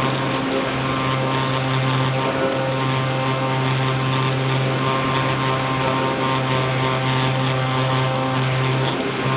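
Electric motor and pusher propeller of an Easy Star RC foam plane running at steady throttle, heard from the camera on board: a constant drone with a steady hiss.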